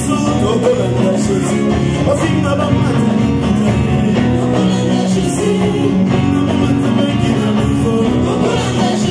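A woman singing into a microphone over instrumental accompaniment.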